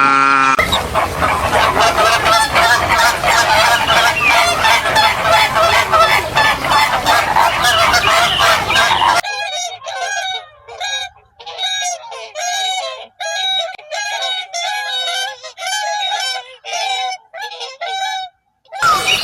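A large flock of birds calling in a dense, overlapping din; about nine seconds in it cuts to fewer birds giving separate short calls in quick series with brief gaps.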